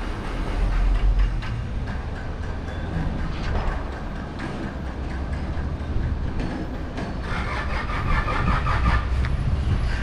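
Outdoor town ambience dominated by a steady low rumble, with faint scattered ticks. Higher-pitched noise rises for a couple of seconds about seven seconds in.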